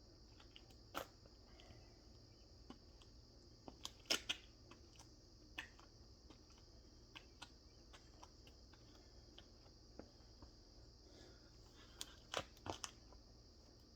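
Faint steady chirring of crickets, with scattered short knocks and taps, a cluster about four seconds in and another near the end.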